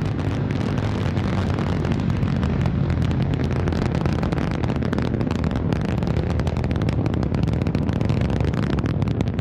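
Antares rocket's first stage, its two RD-181 engines running at full thrust during ascent: a steady, loud low rumble full of dense crackle.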